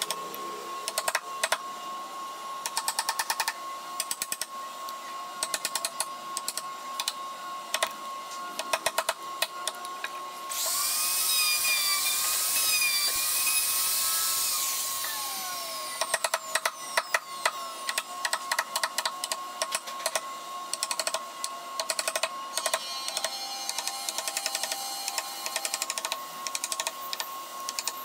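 A wooden mallet tapping a chisel into wood in quick runs of strikes. About ten seconds in, an electric plunge router runs with a loud whine for about five seconds, winding down before the mallet-and-chisel taps resume.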